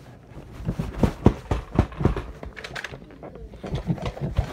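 Irregular knocks and rubbing from a phone being handled with its lens covered, something pressing against its microphone.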